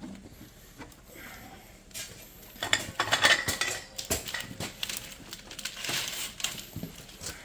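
Metallic clinking and knocking from working a homemade hydraulic log splitter, sparse at first and much busier from about two and a half seconds in.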